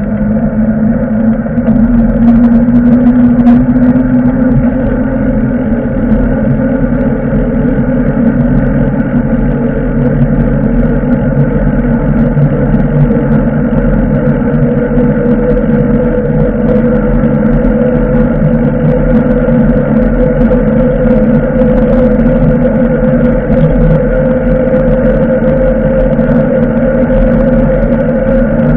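Continuous ride noise of a bicycle in motion: low rumble with a steady hum that drifts slightly in pitch.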